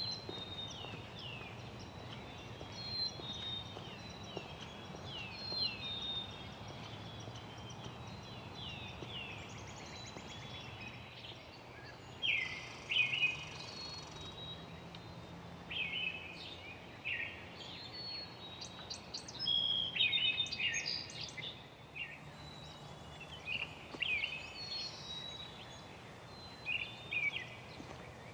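Songbirds calling and singing: repeated short downward-sliding chirps through the first half, then louder, busier bursts of chirping from about halfway on, over a steady low background rumble.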